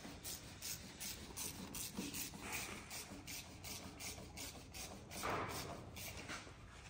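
Repeated hand rubbing or scraping strokes on metal parts during starter motor reassembly, about three a second, with one louder, fuller stroke about five seconds in.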